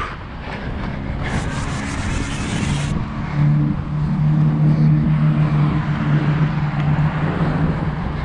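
A motor vehicle's engine running nearby with a steady low hum that sets in about three seconds in, after a brief hiss.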